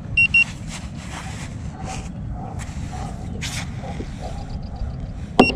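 An electronic beeper giving two short high beeps near the start and two more near the end, over a steady low rumble with scattered clicks and knocks.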